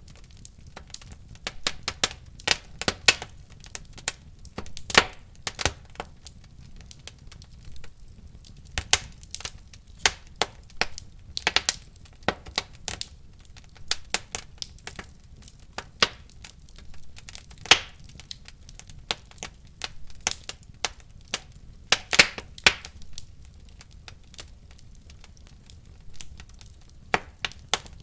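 Wood fire in a fireplace crackling, with irregular sharp pops and snaps, some in quick clusters, over a faint low rumble of the flames.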